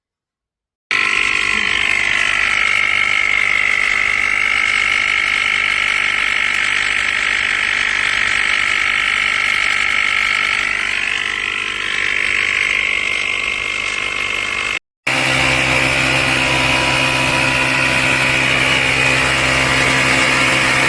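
Small portable tyre-inflator air compressor of a jump starter running steadily, starting about a second in. It cuts out briefly about three-quarters of the way through and carries on with a deeper hum.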